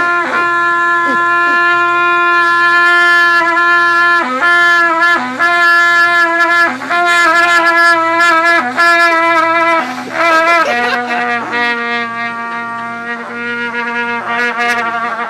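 Trumpet blown as one long, loud held note with brief cracks, stepping down to a lower note about eleven seconds in and holding it.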